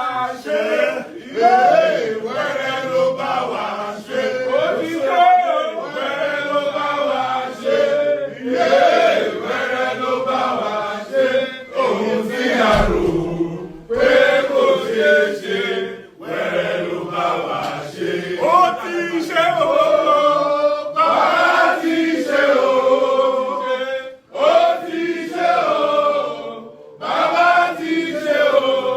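A group of people chanting and singing together, with short breaks between phrases.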